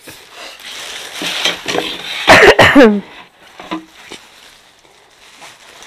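Plastic packaging wrap crinkling as it is handled, then a short, loud cough a little over two seconds in.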